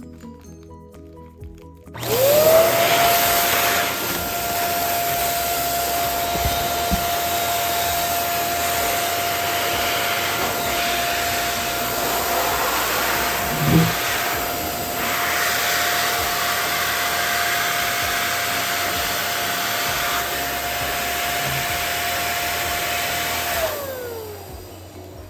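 Electric balloon inflator switched on about two seconds in. Its motor spins up to a steady whine over a rush of air, runs for about twenty seconds with a brief knock midway, then winds down in pitch as it is switched off near the end.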